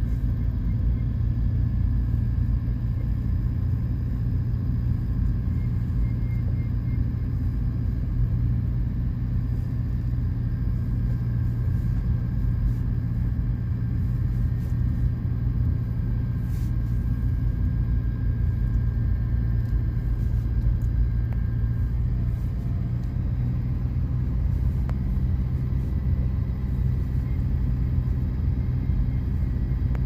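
Steady low rumble of a car driving, heard from inside the moving vehicle: engine and road noise.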